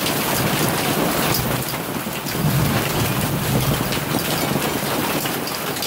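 Hail and heavy rain pelting a porch and its gazebo canopy: a dense hiss thick with small sharp clicks of hailstones striking. A low rumble of thunder swells in the middle.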